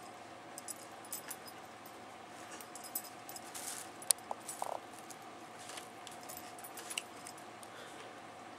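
Two cats play-fighting on carpet: faint scuffling and the light jingle of a collar tag, with one sharp click about four seconds in, over a faint steady hum.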